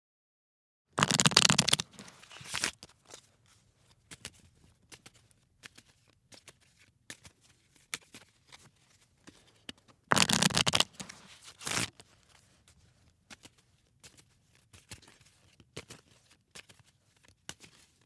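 A deck of playing cards shuffled by hand: two loud bursts of shuffling, about a second in and about ten seconds in, each followed by scattered soft clicks and taps of the cards.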